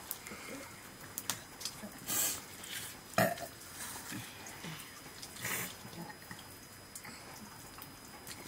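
Eating by hand from metal plates: scattered small clicks and soft scrapes of fingers and food against the plates, with two short hissy sounds and one sharper, louder sound a little after three seconds in.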